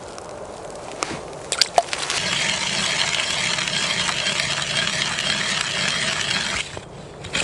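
Hand ice auger cutting into river ice: a steady grinding crunch that starts about two seconds in, after a few sharp clicks, and stops shortly before the end.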